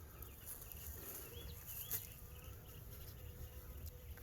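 Honeybees from a newly installed package buzzing, a faint steady hum.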